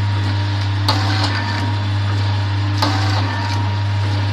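XY-70BF automatic auger-filler sachet packaging machine running with a steady low hum. A sharp clack comes about every two seconds, twice here, each followed a moment later by a lighter click: the sealing and cutting jaws working once per stick pack.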